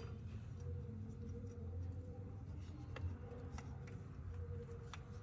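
A few faint, scattered clicks and light taps from parts being handled and fitted at the clutch fork, over a low steady hum.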